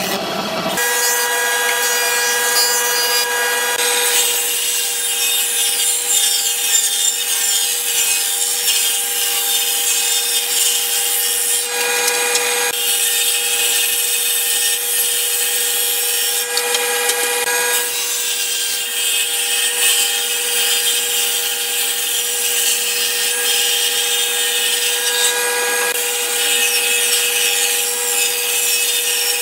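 Stationary woodworking machine running with a steady whine while wood is cut on it, the cutter's hiss sitting over the motor tone. The sound changes abruptly a few times.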